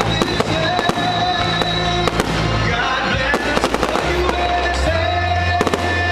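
Fireworks going off in quick succession, many sharp bangs and crackles, over music with long held notes and a low sustained bass line.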